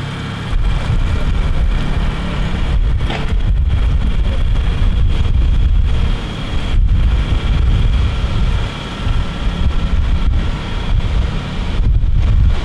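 Small boat's Yamaha 9.9 outboard motor running steadily, with wind rumbling heavily on the microphone.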